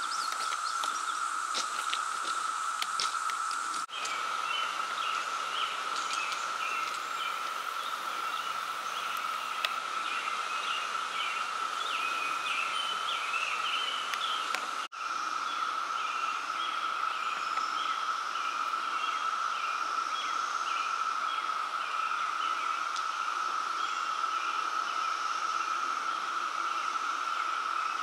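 Outdoor ambience: a steady high-pitched insect drone, with short chirping calls repeating over it from about four seconds in. The sound cuts out briefly twice.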